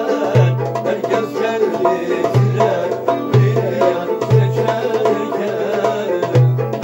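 Turkish folk music (türkü) played on a bağlama, with a deep low beat sounding about once a second.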